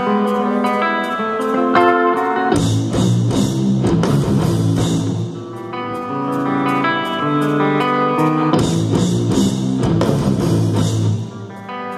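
Live rock band playing, recorded from the crowd: electric guitars play a melodic riff over bass and drums, with a steady ticking cymbal. The band comes in heavier about two and a half seconds in and again near eight and a half seconds.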